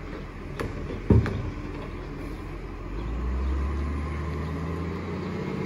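Side-loading recycling truck's mechanical arm emptying a wheelie bin: a sharp clank, then a heavy thud about a second in as the bin is shaken against the hopper. About three seconds in, the truck's diesel engine drone rises and holds steady.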